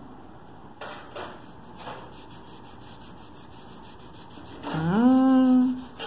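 A sponge rubbing against a painted wall in a few faint strokes. Near the end comes a woman's long wordless vocal sound, rising in pitch and then held for about a second; it is the loudest thing.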